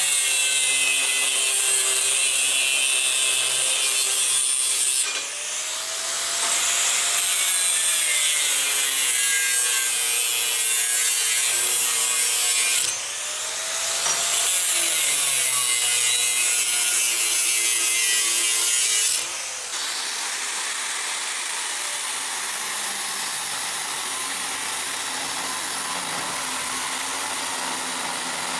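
Angle grinder with a cut-off disc slicing through the bronze sprues and feeders of a casting. Its motor pitch sags under load and recovers, with two brief drops about 5 and 13 seconds in. About 19 seconds in the sound gives way to a steadier, slightly quieter grinder.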